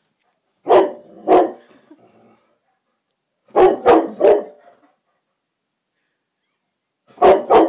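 Black labrador barking loudly in short volleys: two barks about a second in, three more around four seconds in, and two more near the end.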